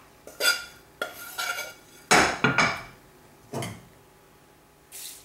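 Steel spoon scraping and clinking in a non-stick frying pan as dry-roasted coconut and spices are scooped out, a handful of short, irregular scrapes with light ringing; the loudest comes a little after two seconds in.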